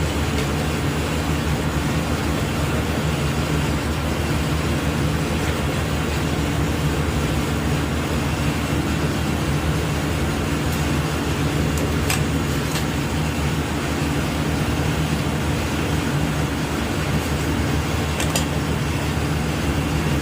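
A steady, unbroken low mechanical hum over even background noise, with a few faint clicks near the middle and near the end.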